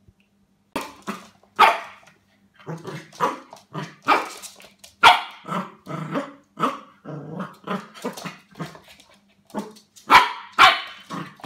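Pembroke Welsh Corgi puppy barking repeatedly, a rapid string of short barks at about two to three a second, starting just under a second in. The puppy is barking at unfamiliar plastic cups on the floor.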